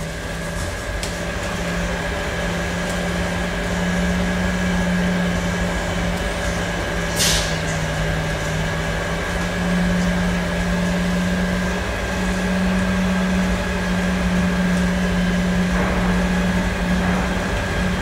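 Vacuum pump running steadily with a low hum while it holds vacuum on the bagged hull during resin infusion, with a brief high hiss about seven seconds in.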